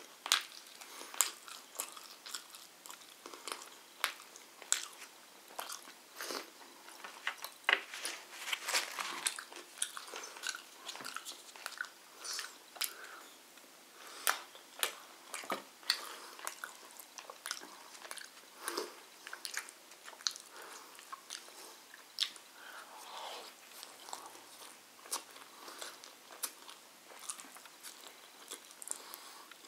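A person chewing and biting chicken and flatbread close to the microphone: a steady run of sharp wet mouth clicks, one to a few each second.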